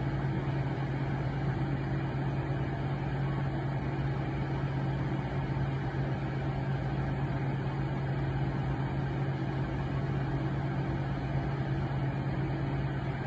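Steady low machine hum, unchanging throughout, with a strong deep tone under a wash of even noise.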